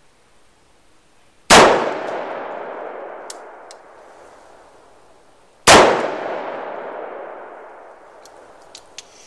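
Two shots from a Bond Arms Snake Slayer two-barrel derringer firing .410 shotgun shells, about four seconds apart, each followed by a long echo that fades over a few seconds. A few light clicks come between and after the shots.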